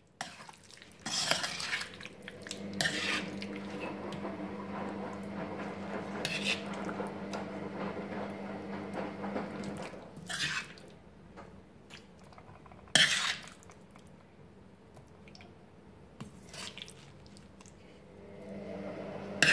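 A metal spoon knocking and scraping against a stainless steel pot as cooked chicken masala is spooned onto a layer of rice, with scattered clinks and one louder clank about two-thirds of the way through. A low steady hum runs underneath.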